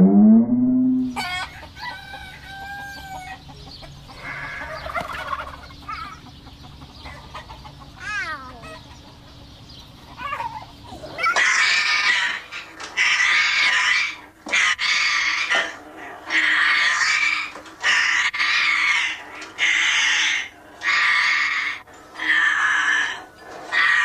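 African grey parrot squawking loudly and repeatedly, about ten calls each roughly a second long with short gaps, starting about eleven seconds in. Before that come quieter whistled, gliding notes.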